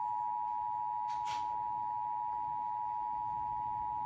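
Emergency Alert System attention signal: two steady tones sounding together, the alert tone that opens a broadcast emergency alert.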